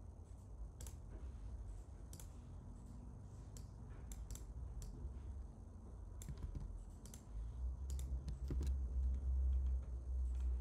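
Computer mouse and keyboard clicks: about a dozen short clicks, single and in quick pairs, as code is selected, copied and pasted. A low hum underneath grows louder about two thirds of the way in.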